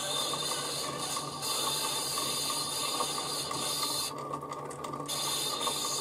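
Stepper motor driving 3D-printed reduction gears on a homemade turntable, running with a loud steady mechanical whirr, over the scratchy hiss of the needle on a 45 rpm record. About four seconds in, the needle hiss cuts out for about a second as the tone arm is lifted, while the gear noise goes on.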